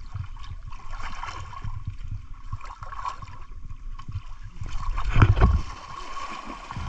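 River water sloshing and splashing around people wading with a fishing net, with one louder, deep surge of water about five seconds in.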